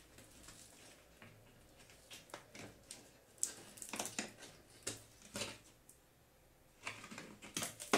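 Handling noise: scattered light clicks and rustles of hands working the flat ribbon-cable connector on an LCD TV's main board, busiest in the middle and again near the end.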